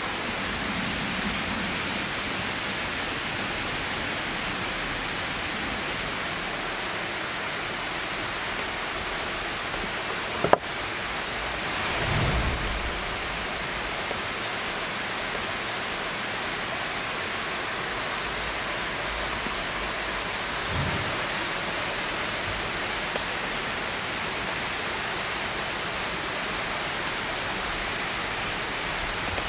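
Steady rush of flowing river water, with a single sharp click about ten seconds in and a soft low thump about two seconds later.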